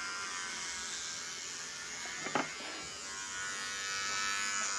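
Electric hair clippers buzzing steadily as they are run over a short-cropped head, shaving through the hair.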